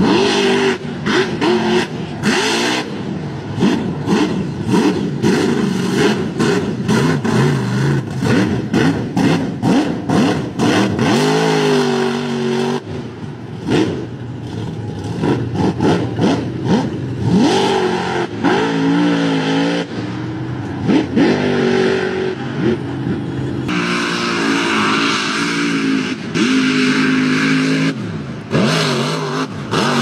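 Mud truck's engine revving hard, its pitch climbing and dropping again and again, while the spinning tyres churn and throw mud.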